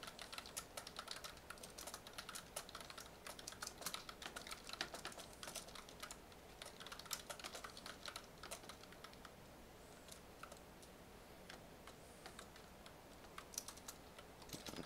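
Typing on a computer keyboard: irregular runs of key clicks that thin out for a few seconds past the middle, then pick up again near the end.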